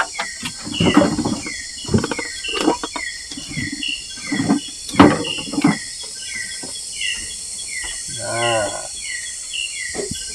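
Forest insects chirping: a steady high drone with a short falling chirp repeated about twice a second. Sharp knocks and clatter of cooking utensils cut in several times, the loudest about five seconds in, and a short pitched sound comes about eight seconds in.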